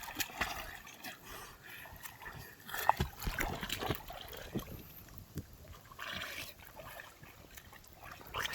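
Water splashing and sloshing in irregular bursts, with a sharper splash about three seconds in.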